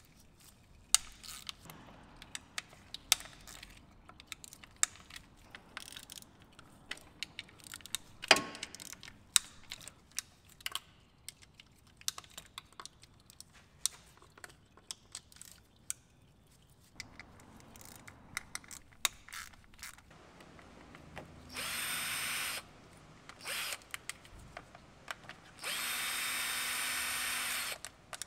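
Hand socket ratchet clicking in irregular strokes as transmission oil pan bolts are loosened, then a cordless drill-driver running bolts out in three short runs near the end, the last about two seconds long.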